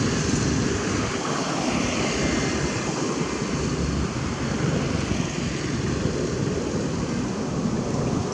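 Steady, fairly loud low rumbling noise with no distinct events.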